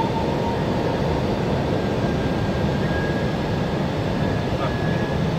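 Steady flight-deck noise inside an Airbus A321 in flight: a constant rush of airflow and engine noise, even in level throughout, with a faint thin tone about two seconds in.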